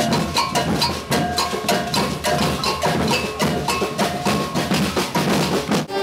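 Street drum corps playing fast carnival percussion: rapid drum strikes in a driving rhythm, with short ringing high notes repeating through the pattern. It cuts off abruptly just before the end.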